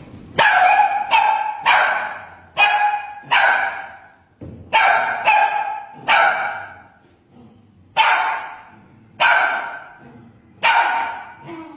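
A dog barking repeatedly: about eleven loud barks in bouts of two or three, each bark dying away quickly.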